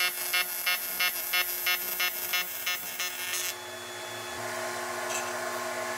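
TIG welding arc on aluminium, run as a fusion weld without filler rod, buzzing and pulsing about four times a second. The arc cuts off about three and a half seconds in, leaving a lower steady hum.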